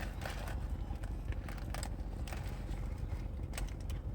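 Close-miked chewing of a mouthful of burger, with scattered small wet clicks and smacks over a low rumble.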